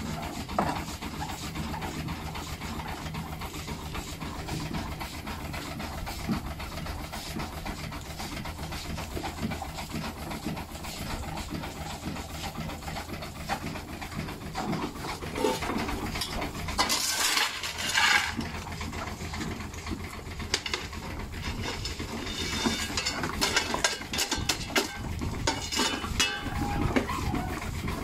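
Belt-driven Fred Parker stone crusher running and breaking brick: a steady mechanical run with irregular clattering and clinks of broken pieces. There is a louder crunching rush a little past halfway, and a quicker run of rattles near the end.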